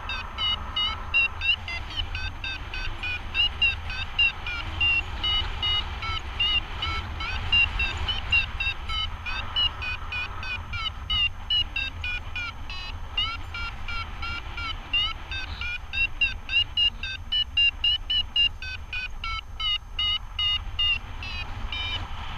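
Paragliding variometer beeping in a fast run of short chirps that rise and fall in pitch, the climb tone that signals lift, over a low rumble of wind on the microphone.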